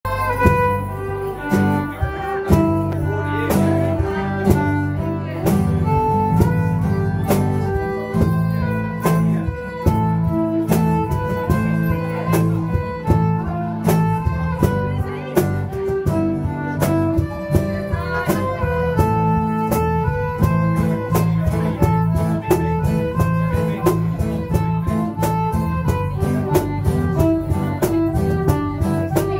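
Live folk-rock band playing an instrumental tune: a fiddle melody over acoustic guitar, electric bass and percussion with a steady beat.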